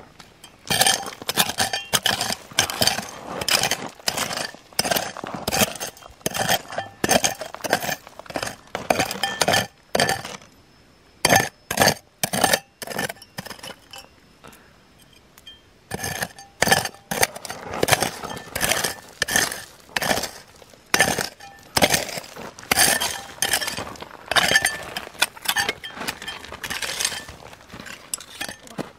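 Rapid sharp clinks and knocks of hard objects striking each other, several a second, with a brief ring after the strikes. The strikes pause for a few seconds about halfway, then resume.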